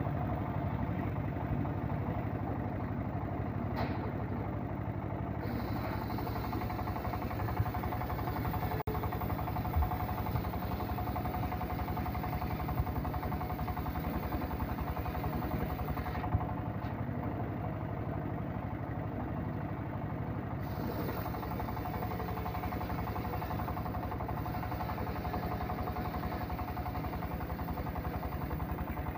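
Engine-driven homemade circular sawmill running steadily as its blade rips an acacia log lengthwise, a steady tone over the engine drone, with a few light knocks.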